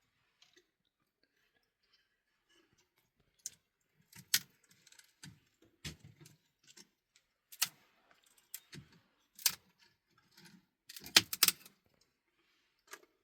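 Scattered sharp clicks and jingling rattles of small hard objects, with a quick flurry of loud clicks about eleven seconds in.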